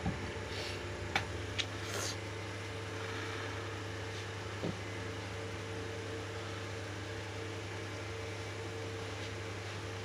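Steady low electrical hum with a few light clicks about one to two seconds in and one more near the middle. The clicks come from metal tweezers setting a micro-USB charging connector onto a keypad phone's circuit board.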